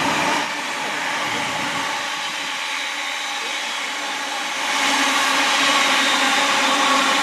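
Two coupled London Midland Class 350 Desiro electric multiple units passing at speed: a steady rush of wheels on rail with a faint hum, growing louder about five seconds in.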